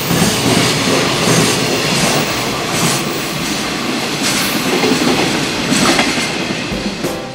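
Freight train of container wagons passing at speed: a loud, steady rush of wheels on rail with scattered clacks over the rail joints.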